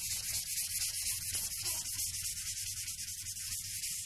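Blackboard duster wiping chalk writing off a blackboard: a steady scrubbing rasp made of quick back-and-forth strokes.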